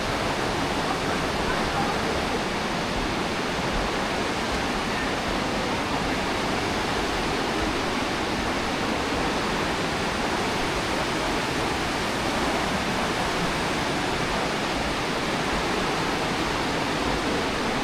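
Aare River rushing through a narrow rock gorge: a steady, unbroken noise of fast-flowing water.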